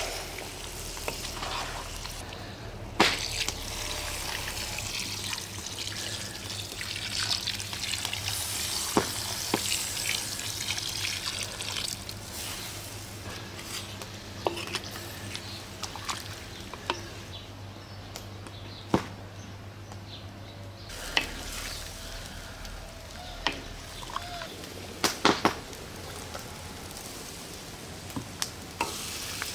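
Chicken curry with tomatoes sizzling and bubbling in a large steel wok over a wood fire while it is stirred with wooden spoons, with occasional sharp knocks of a spoon against the pan.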